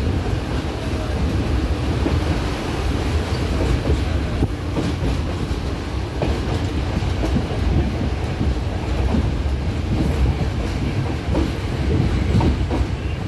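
A passenger train running along, heard from on board: a steady low rumble with scattered clicks from the wheels on the rails.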